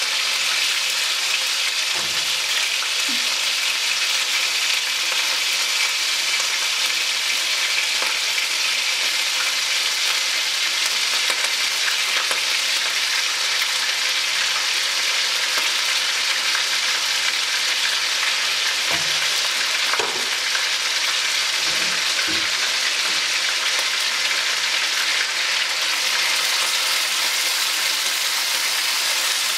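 Marinated chicken pieces frying in hot cooking oil in a nonstick wok: a steady sizzling hiss, with a few faint knocks now and then.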